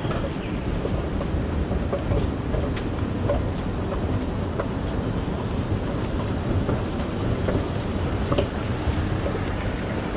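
Escalator running, heard from on the moving steps: a steady low rumble from the drive and step chain, with a few faint clicks.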